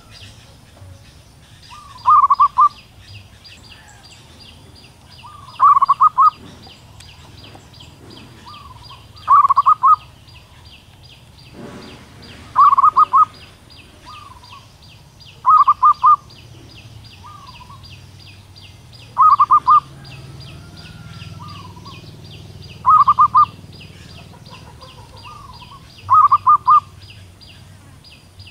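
Female zebra dove calling to a male: eight short, stuttering runs of notes, one about every three and a half seconds, with a softer single note between some of them. A steady, fast, high-pitched chirping runs underneath.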